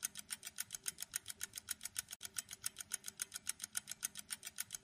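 Clock-style ticking sound effect for a quiz countdown timer: rapid, evenly spaced ticks, several a second.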